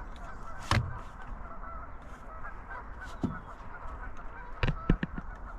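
A large flock of waterfowl calling without pause, a dense chorus of Canada geese honking among ducks. Sharp clicks about a second in and a quick cluster of them near the end.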